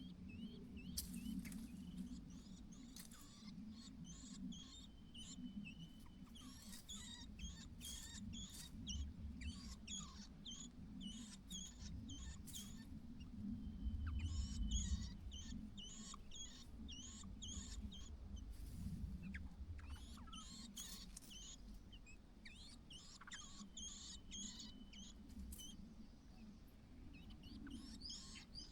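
White-browed laughingthrushes calling: a run of short, high-pitched squeaky chirps, with a few longer thin whistled notes, over a faint steady low rumble.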